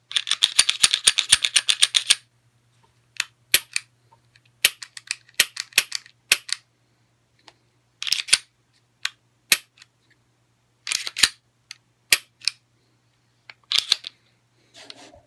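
Clicks from a Taurus G2C 9mm pistol being handled and its slide worked against a freshly installed 18 lb stainless steel recoil spring assembly: a rapid run of clicks for about two seconds, then scattered single clicks and short clusters. A faint steady low hum runs underneath.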